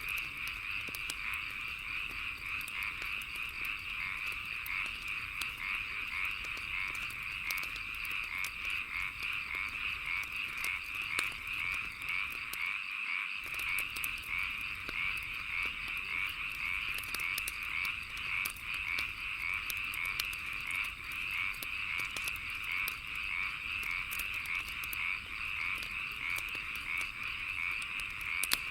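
A dense chorus of frogs croaking in a fast, steady pulsing, mixed with the scattered sharp pops and crackles of a wood fire burning.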